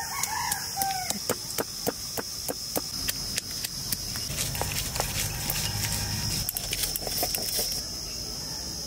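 Stone pestle pounding garlic cloves, green chillies and ginger on a grinding board, in sharp knocks at about three a second. A chicken calls briefly near the start.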